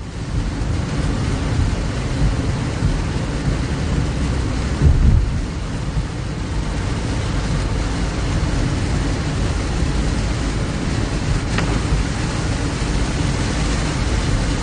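Heavy rain falling steadily, with a low rumble underneath that swells briefly about five seconds in.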